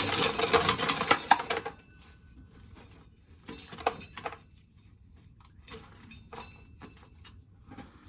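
Dry corn kernels being shelled off the cob by hand and clattering into a container: a dense, loud rattle for the first couple of seconds, then scattered clicks of a few kernels at a time.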